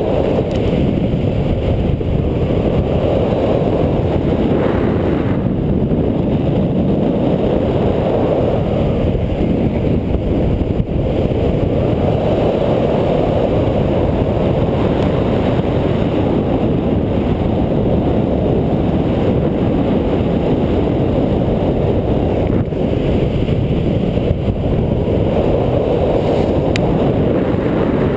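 Steady wind rushing over the microphone of a body-mounted camera during a fast speedriding descent on skis.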